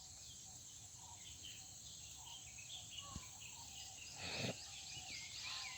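Faint outdoor ambience: a steady high insect drone with scattered bird chirps, and a short noisy burst about four seconds in.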